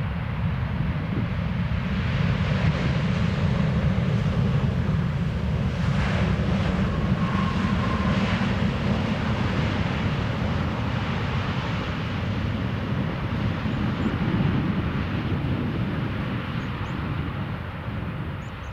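Jet engines of a Qatar Airways Boeing 777-300 arriving, a steady deep rumble that swells a little through the middle and eases near the end.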